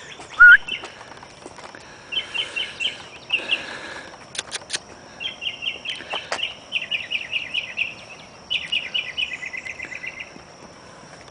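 A songbird singing several phrases of rapid repeated notes in quick trills, with a short rising chirp about half a second in. A steady high-pitched whine runs underneath, and there are a few sharp clicks near the middle.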